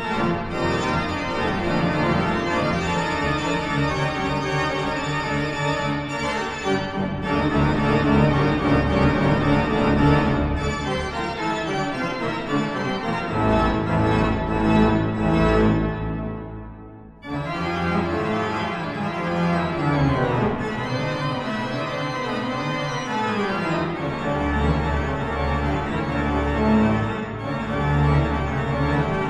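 Pipe organ playing sustained full chords. The sound falls away briefly about halfway through, then the music resumes. Deep pedal notes come in near the end.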